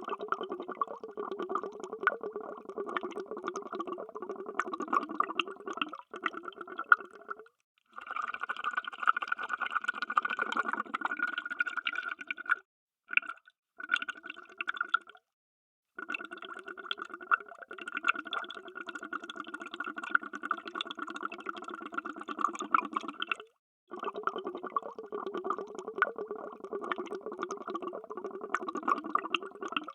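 Underwater bubbling: a dense stream of bubbles gurgling and crackling. It is cut by several abrupt short silences, around 6, 8, 13, 15–16 and 24 seconds in.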